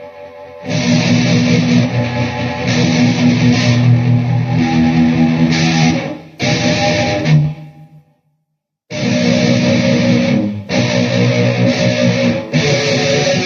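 Electric guitar played through a Peavey VYPYR X2 amplifier. It starts with quiet ringing notes, breaks into loud strummed chords under a second in, drops to silence for about a second past the middle, then comes back in loud.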